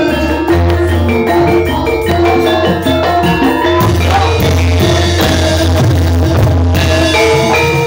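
Javanese gamelan music: metallophones ring out a melody over drums and a deep, steady bass.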